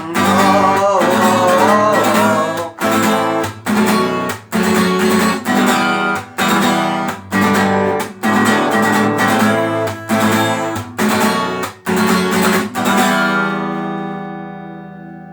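Acoustic guitar strummed in a fast, choppy rhythm, the chords cut short again and again. It ends on a final chord, about 13 s in, that rings out and fades away.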